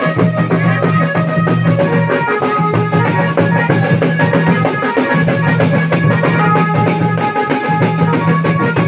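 Folk music with fast, steady drumming under a melody of short held notes and a low sustained drone.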